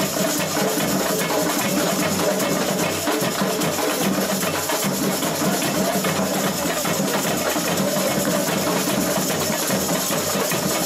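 Samba music driven by drums and percussion, with bass drums pulsing in a steady rhythm.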